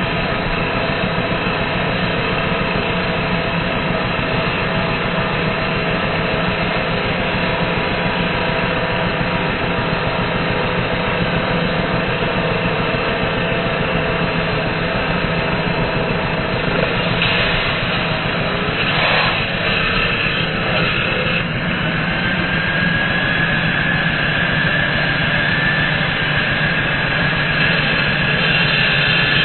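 Handheld angle grinder with a cut-off disc running steadily, cutting through the steel of an excavator's arm and throwing sparks. Its pitch shifts a little as the disc bites, with a few brief scrapes about two-thirds of the way through.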